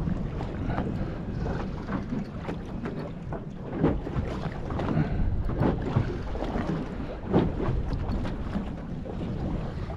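Wind buffeting the microphone over small waves slapping against the side of a small boat, with irregular knocks and splashes, two of them louder, about four and seven seconds in.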